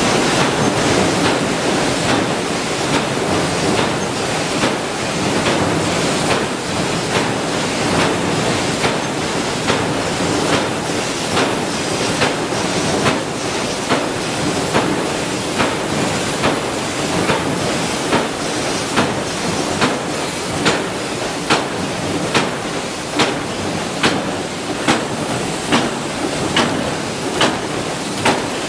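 Power presses stamping steel parts for concealed cabinet hinges: a sharp metallic clank a little more than once a second over the steady din of running factory machinery.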